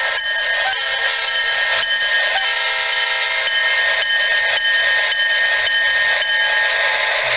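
HO-scale model train rolling past close by: a steady rolling rattle of small wheels on the track mixed with a set of steady high tones, with a short horn-like chord about two and a half seconds in.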